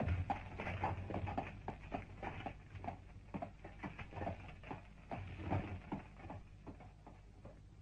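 Horse's hooves clip-clopping in a quick, uneven rhythm as a horse-drawn carriage sets off, slowly fading away.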